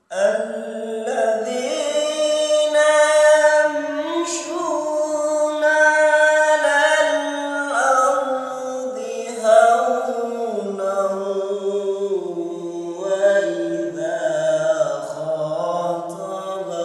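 A man reciting the Quran in a slow, melodic chant, drawing out long held notes with ornamented turns. His pitch sinks lower in the second half.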